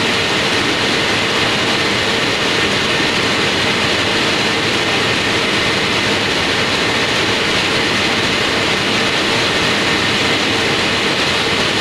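Factory roller machine running, feeding a wide yellow sheet: a loud, steady mechanical noise with a constant mid-pitched hum and no breaks or knocks.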